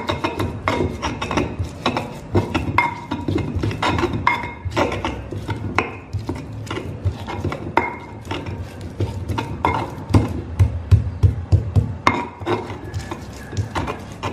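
Stone pestle crushing and grinding fried garlic and shallots on a volcanic-stone mortar (Indonesian cobek and ulekan): repeated knocks and scrapes of stone on stone, grinding them into a paste.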